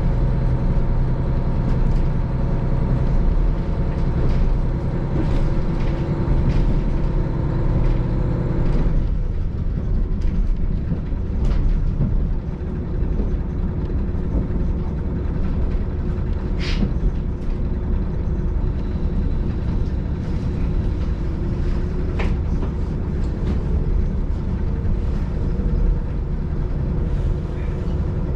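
JR KiHa 40 diesel railcar running along the line, heard from inside the car: a steady low diesel and wheel rumble. The engine note changes about nine seconds in, and there are a few light ticks.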